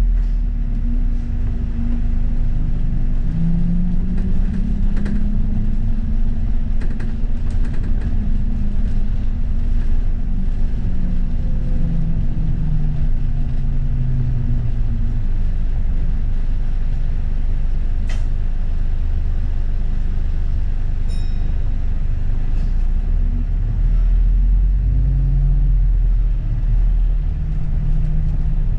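London double-decker bus on the move: a steady low engine and drivetrain hum whose pitch slowly rises and falls as the bus speeds up and slows, with occasional rattles and knocks.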